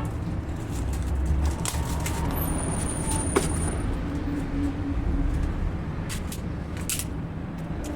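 A vehicle engine running steadily, with scattered clicks and knocks over it, one sharper knock near the middle.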